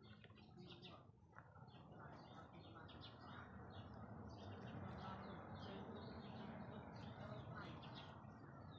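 Faint small birds chirping over and over, over a steady low rushing noise that grows louder after about two seconds and eases near the end.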